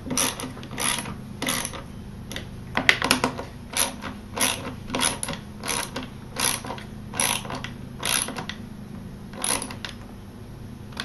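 Ratchet wrench clicking in short strokes, about one or two a second with a brief pause near the end, while screws are being snugged up.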